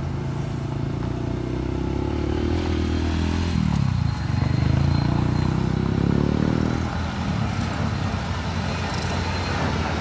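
Diesel engine of a UD Trucks Quester tanker truck running as the truck comes closer over a rough dirt road. The engine note dips about three and a half seconds in, then climbs again over the next few seconds.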